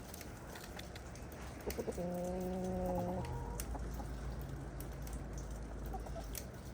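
Hens clucking softly now and then. About two seconds in, a steady even-pitched hum runs for just over a second, with a low rumble behind it.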